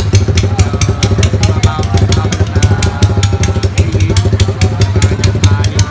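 Motorcycle engine idling loudly close by, a fast even pulse over a steady low hum, with faint voices behind it.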